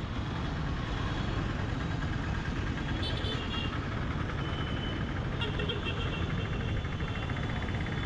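Steady engine and road-traffic rumble heard from a moving motorcycle in congested city traffic, with a few short high-pitched tones about three seconds in and again near six seconds.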